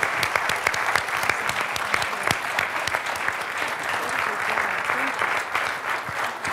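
Audience and cast applauding: steady, sustained clapping from many hands in a hall.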